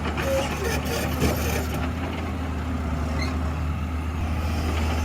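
Toy excavator with a steady engine-like running sound and a constant low hum.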